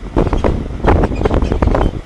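Hyundai Elantra HD rear suspension squeaking and creaking in short irregular bursts, several a second, over a low rumble.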